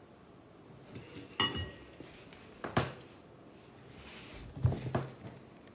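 Metal fork clinking against a ceramic bowl: a few separate short clinks and knocks spread over several seconds, the loudest near the end.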